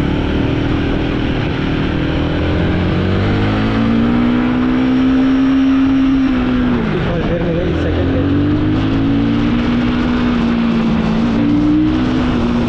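Royal Enfield Guerrilla 450's 452 cc liquid-cooled single-cylinder Sherpa engine pulling hard in first gear, the revs rising and then held high. About seven seconds in the throttle is briefly shut and the revs drop, then they climb and hold again.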